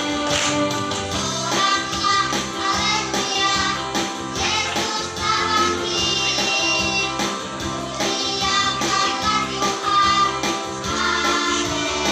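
Children's choir singing together over instrumental accompaniment with a steady beat.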